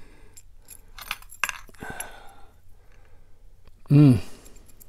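Small metallic clicks and clinks of keys and lock picks knocking against a brass lock being handled. A short hummed grunt comes about four seconds in.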